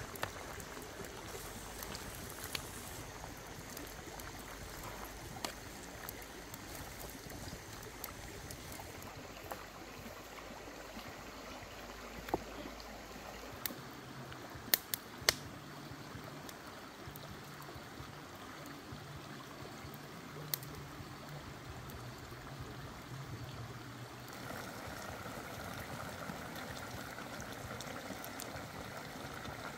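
Steady watery noise of a curry simmering in a wok over a wood fire, mixed with a shallow stream flowing over rocks beside it. A few sharp clicks stand out, the loudest pair about halfway through.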